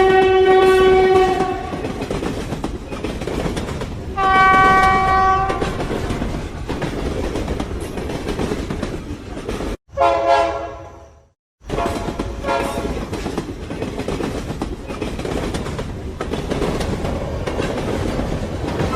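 Train horn blasts over the rumble and clatter of a train running on the rails. About ten seconds in the sound cuts out briefly and a horn note falls in pitch, then the running train carries on.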